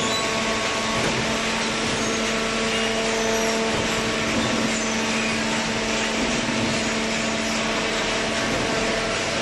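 Semi-automatic hydraulic carton baler running, its pump motor giving a steady hum with a constant tone over even machine noise.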